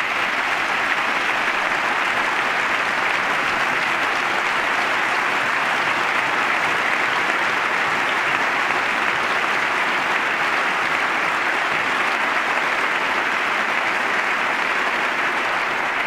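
Steady, sustained applause from a large crowd of many people clapping together.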